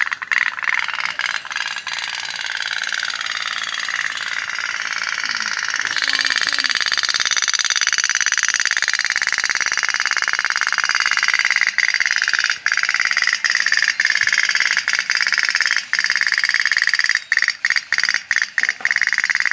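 Candle-heated tin pop-pop (otok-otok) toy boat running on water, its little steam engine making a steady rapid rattle that grows brighter about six seconds in.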